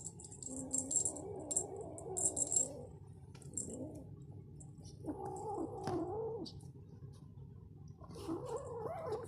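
Kurilian Bobtail kitten growling over a mouse it has caught, guarding its prey, in three wavering bouts: one at the start, one about five seconds in, one near the end. Wood-pellet cat litter rattles and clicks under it during the first few seconds.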